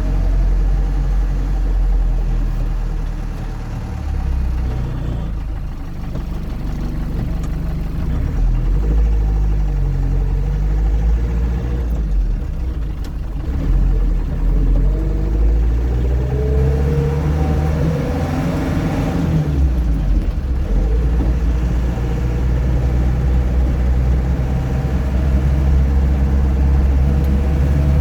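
Land Rover Series III engine running under way, its note climbing about two-thirds of the way through, dipping briefly, then holding steady.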